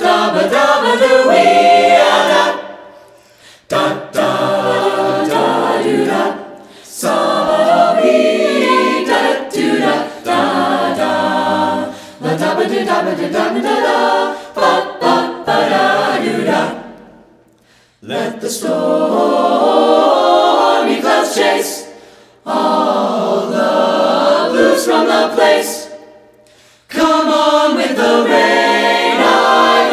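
A cappella vocal jazz ensemble singing, several voices without instruments, in phrases broken by short pauses.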